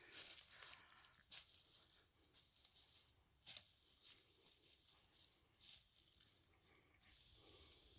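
Faint, irregular crunching and rustling of footsteps in dry leaf litter, the loudest crunch about three and a half seconds in.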